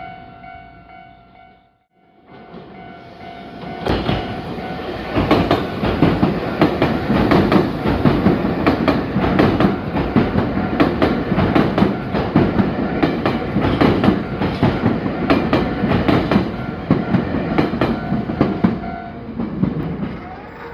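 Nankai Line electric train passing a level crossing, its wheels clattering over the rail joints in a quick run of clicks for about fifteen seconds. The crossing's warning bell rings steadily underneath and stops near the end. The sound drops out briefly about two seconds in, before the train arrives.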